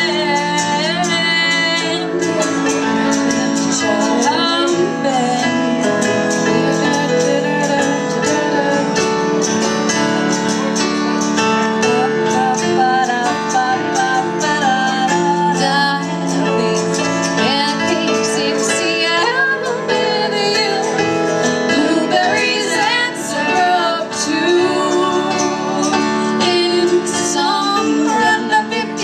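Live acoustic duo music: an acoustic guitar and an electronic keyboard playing, with a woman singing over them.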